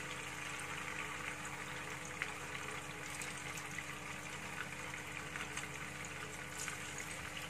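Tofu strips frying in hot oil in a frying pan: a steady sizzle and bubbling, with scattered small pops.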